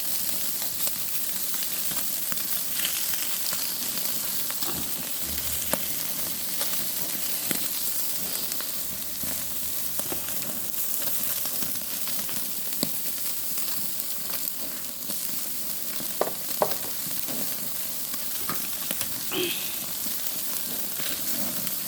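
Prawns sizzling steadily as they cook over high heat, with scattered sharp clicks and pops, a couple of louder ones a little past the middle.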